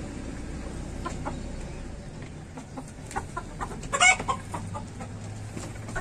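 Hens clucking, with scattered short clucks and one loud brief call about four seconds in.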